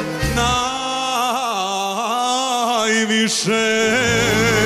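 Male singing voice holding a long sustained note with vibrato over instrumental backing, drawing out the song's closing line. A bass part comes back in near the end.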